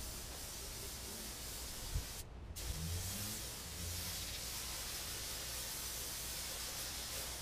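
Compressed-air paint spray gun hissing steadily as paint is sprayed onto a pickup's body panels, with a click and a brief break in the hiss about two seconds in.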